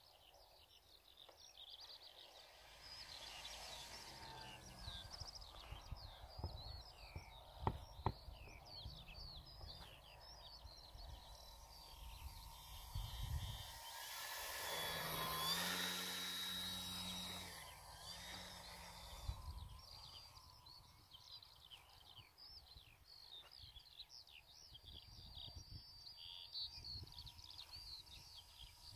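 Small birds chirping and singing, with wind rumbling on the microphone. The whine of the model aeroplane's electric motor swells to its loudest about halfway through as the plane comes low and close, then fades. Two sharp taps sound about eight seconds in.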